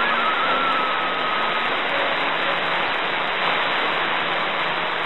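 Shortwave receiver static on 5850 kHz: a steady hiss of band noise through the radio's narrow audio passband. A faint whistle near the start dies away about a second and a half in.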